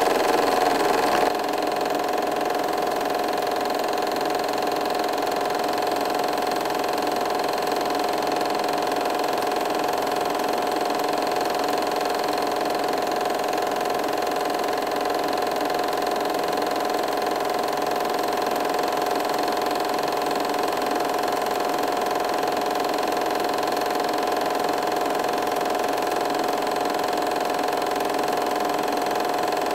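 Steady mechanical whirr of a home-movie film projector running, with a constant hum; slightly louder for the first second or so.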